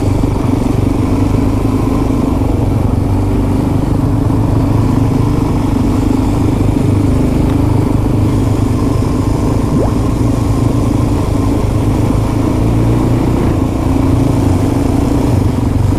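Suzuki DR-Z dual-sport motorcycle's single-cylinder engine running steadily at a constant cruising speed, heard from the rider's seat.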